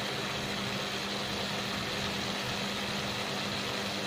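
Steady mechanical hum with an even hiss, unchanging throughout, as from a kitchen machine running.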